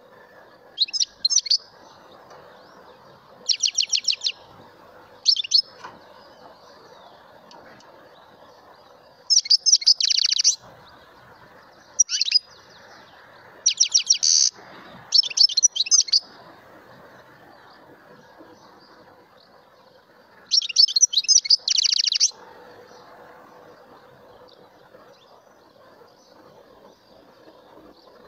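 A caged mutation European goldfinch singing in short phrases of fast, high trilling notes, about eight phrases in all with pauses of a few seconds between them, the longest near the middle and near the end.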